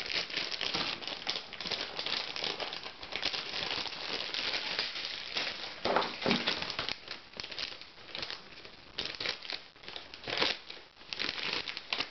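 Clear plastic packaging bags crinkling and crackling as hands unwrap a laptop power cord and battery. The crinkling is irregular, with louder bursts at times.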